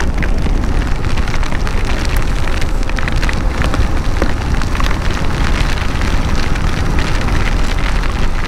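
Heavy rain pelting the rider and the camera on a moving motorcycle: a dense patter of many sharp drop hits over a steady low rumble of wind and engine.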